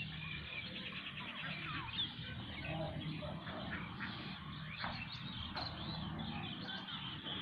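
Many small birds chirping, with short quick calls overlapping over a steady low background hum.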